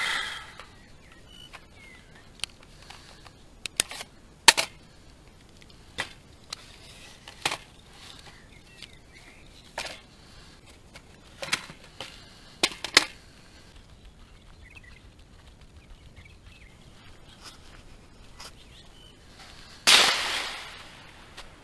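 AR-15 carbine gunshots on an outdoor range: a string of sharp single reports, some coming in quick pairs, with a louder shot near the end that trails off in an echo.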